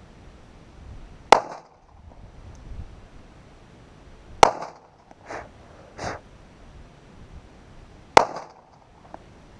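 Micro .380 ACP pistol fired in slow, deliberate shots: three sharp cracks about three seconds apart, each with a short ring. Two fainter pops fall between the second and third shots.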